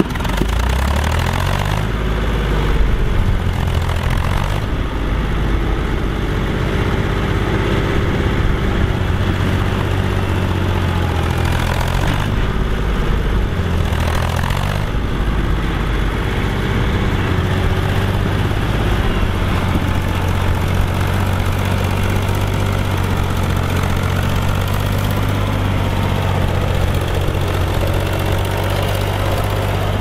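Bukh 403 tractor's diesel engine working hard, pulling a three-furrow plough through hard soil. Its revs climb in the first couple of seconds and then hold steady under the load.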